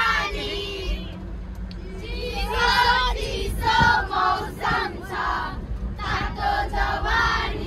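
A group of children singing together in high voices, in short phrases with brief pauses between them.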